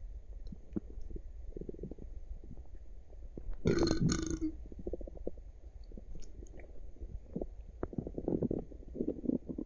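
Human stomach gurgling and rumbling in irregular bursts with small clicks, and one louder burp about three and a half seconds in.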